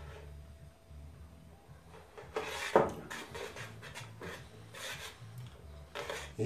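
Metal spoon stirring and scraping melting sugar for caramel around a stainless steel pan, a handful of rasping strokes, the loudest about two and a half seconds in.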